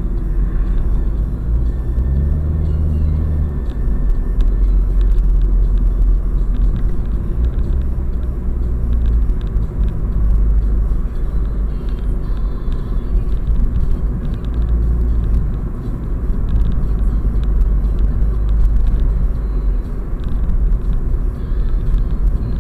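A car driving, heard from inside the cabin through a dashcam's built-in microphone: a steady low rumble of engine and road noise, with a brief engine hum a couple of seconds in.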